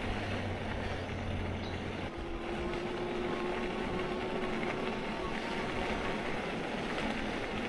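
Steady rushing of wind and rolling noise while riding a bicycle on a paved trail, with a faint steady hum underneath that drops away about two seconds in.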